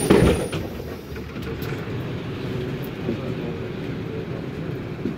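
Cabin noise of a 2008 MAN Lion's Classic city bus on the move: its MAN E2876 CNG engine, ZF Ecomat 6HP504C automatic gearbox and rear axle give a steady low rumble. A brief knock sounds right at the start.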